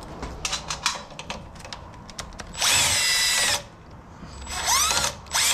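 Cordless power tool spinning out the loose 10 mm bolts of an automatic transmission pan in three bursts, the motor whining up to speed in each. Scattered metal clicks of the socket and bolts come before.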